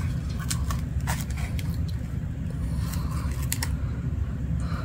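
Paper candy-bar wrapper handled and the backing strip peeled off its double-sided tape: scattered small crinkles, clicks and scrapes of paper, over a steady low hum.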